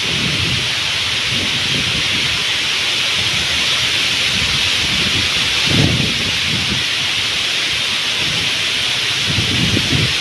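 Steady hiss of wind through bamboo and dry leaves, with gusts buffeting the microphone as low rumbles near the start, about six seconds in, and again near the end.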